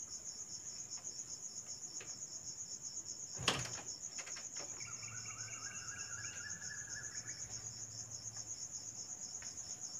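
Steady, rapidly pulsing high-pitched insect chirping, with a single sharp click about three and a half seconds in.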